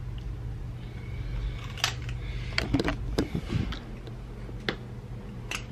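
Steady low hum in a small room, with a few scattered soft clicks and rustles of something being handled.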